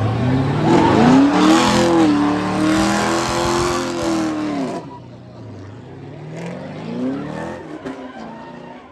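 Chevrolet Camaro's engine revving hard and held at high revs while the rear tyres spin and squeal in a burnout. About five seconds in the revs drop away. It revs up again, more lightly, near the end.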